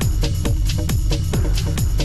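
Electronic dance background music with a steady kick drum about twice a second and hi-hats ticking between the beats.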